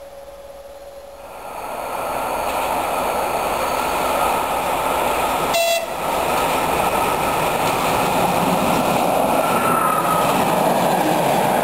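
Diesel passenger train passing close by: a loud, steady rush of engine and wheels on the rails that starts abruptly about a second in.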